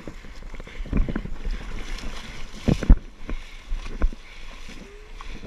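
Splashing and irregular thuds of a runner scrambling through a muddy water pit and out onto a wet mud track, the loudest thuds about one, three and four seconds in.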